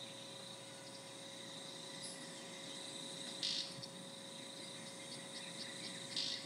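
Red-capped manakin making short, sharp sounds with its wingtips rather than its voice: one loud snap about three and a half seconds in and another near the end, with a few faint ticks between. A steady high drone of insects runs underneath.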